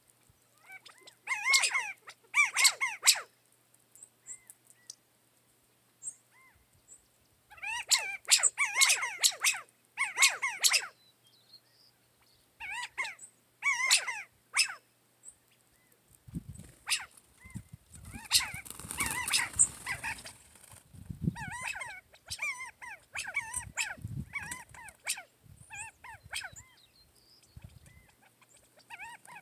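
Repeated bursts of short, sharp animal calls, several to a second, coming in groups a few seconds apart. Low thumps and rustling join them in the second half.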